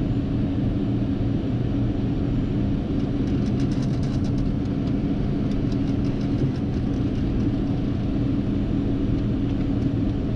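Steady drone inside the cockpit of a Hawker 800XP business jet taxiing with its turbofan engines at idle and the APU still running. A few faint clicks come through in the middle.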